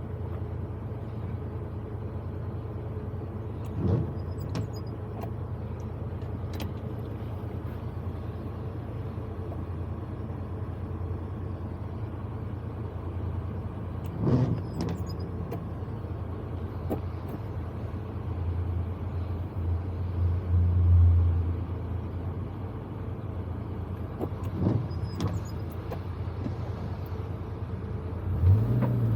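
Proton Wira 1.5's four-cylinder engine running steadily, heard from inside the cabin with road noise, swelling louder around twenty seconds in and rising again near the end. Three short noises break in about ten seconds apart.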